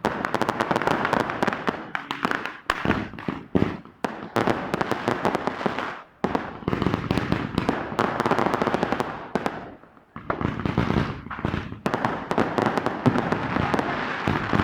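Fireworks going off in long runs of rapid crackling bangs, with brief lulls about three, six and ten seconds in.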